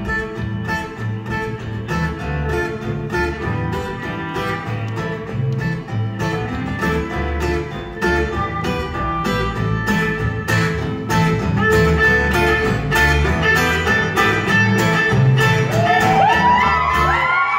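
Live acoustic band playing an instrumental passage without singing: two acoustic guitars strumming, a violin carrying the melody and an upright double bass underneath. Near the end a cluster of high sliding tones comes in over the music.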